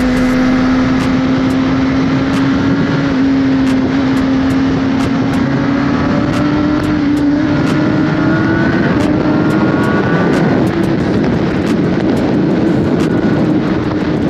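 Sport motorcycle engine running under way at a steady pitch that creeps slowly upward through the middle, over a constant rushing noise.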